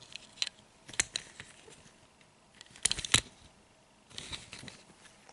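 Light clicks and taps of small die-cast toy cars being handled and set down on a hard surface, with the sharpest pair of clicks about three seconds in and a brief rustle shortly after.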